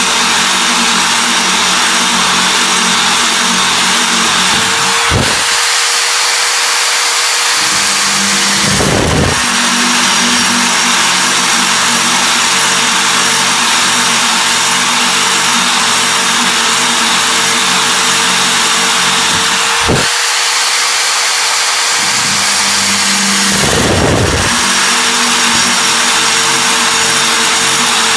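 Power drill running a brazed diamond hexagon-shank core bit, cutting with a steady loud grinding hiss. The motor's hum shifts about five seconds in and again about twenty seconds in, suggesting two drilling passes.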